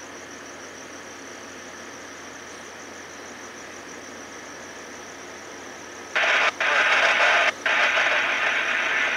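Tri-Rail BL36PH diesel locomotive idling with a steady hum. About six seconds in, a much louder harsh noise starts suddenly, breaks off twice for a moment, then carries on.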